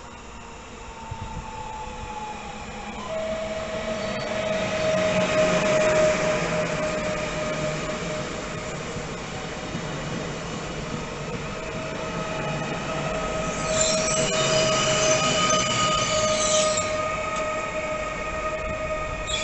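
A train running through the station, growing louder over the first few seconds into a steady rumble with a whining tone. Near the end comes a high-pitched wheel squeal lasting about three seconds.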